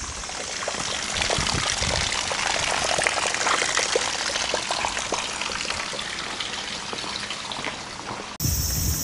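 Running water splashing and trickling steadily, a dense patter of small splashes. It cuts off suddenly near the end.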